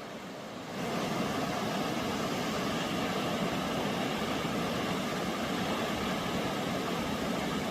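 Tumalo Creek's water rushing in a steady, even roar, growing suddenly louder and brighter about a second in.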